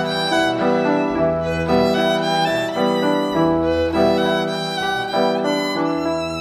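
Instrumental music led by a fiddle playing a melody of quickly changing notes over a lower accompaniment.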